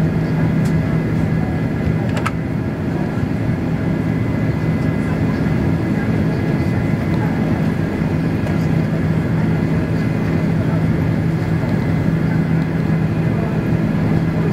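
Cabin noise of a Boeing 767-400ER in its climb after takeoff: a steady drone of the turbofan engines and rushing air, with a strong low hum, heard inside the cabin by the wing. A brief click about two seconds in.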